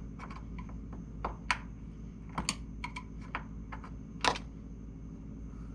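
Small, sharp metal clicks and taps, about a dozen and unevenly spaced, from a hand tool prying at the little clip on the door pin of a 1974 VW Super Beetle's door. Two louder clicks come about a second and a half in and just past four seconds.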